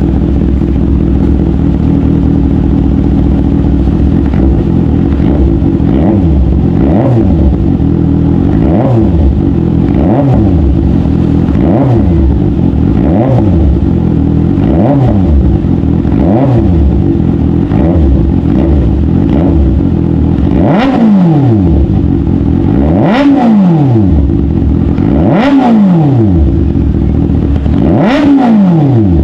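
Kawasaki ZX-6R inline-four breathing through an Austin Racing GP1R slip-on exhaust, revved repeatedly from idle. Short blips come about every second and a half; in the last third they become bigger, higher revs about every two and a half seconds.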